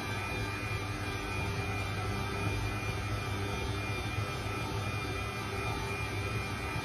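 Electric stand mixer running steadily, its dough hook kneading a sticky bread dough in a stainless steel bowl: a constant motor hum with a thin high whine over it.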